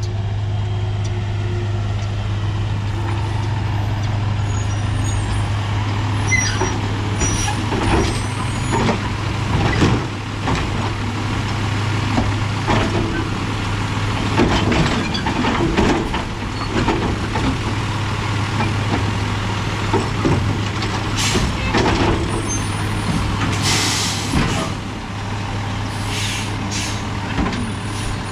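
Peterbilt split-body garbage truck working a collection stop: its engine runs with a steady low hum under repeated clanks and bangs. Several sharp air-brake hisses come in the second half.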